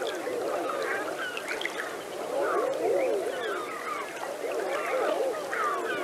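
A dense chorus of many animals calling at once: short, overlapping calls that rise and fall in pitch, without pause.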